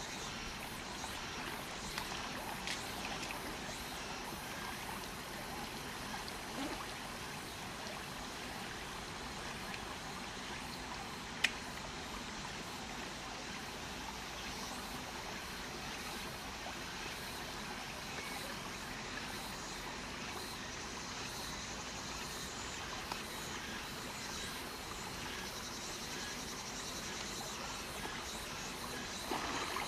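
Shallow stream water trickling steadily over rocks, with a single sharp click about halfway through.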